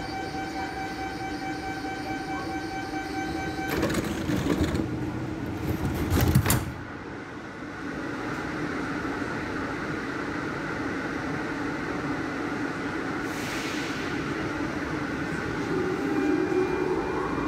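Barcelona Metro Serie 4000 train standing at a platform with the steady hum and tones of its onboard electrical equipment. Two loud bursts of noise come about four and six seconds in, and a short hiss follows a while later. Near the end the traction motors start up with a rising whine as the train pulls away.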